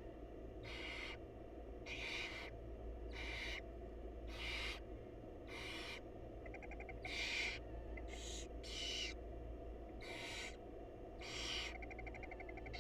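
Barn owl nestlings giving their hissing, snore-like begging calls, a noisy rasp about once a second, with a couple of short buzzy trills in between. Begging calls like these are the chicks' hunger calls for food.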